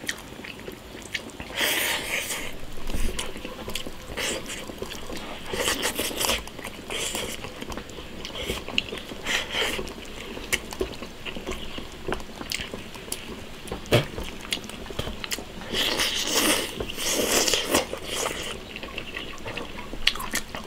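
Close-up eating sounds: a man chewing and slurping mouthfuls of stewed snakehead fish and rice in irregular bursts, with occasional sharp clicks of chopsticks against the bowl.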